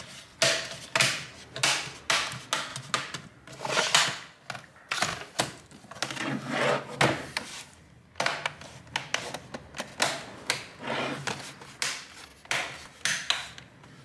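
Plastic clips of a laptop's bottom case snapping into place as its edges are pressed together: an irregular run of sharp clicks, about one or two a second.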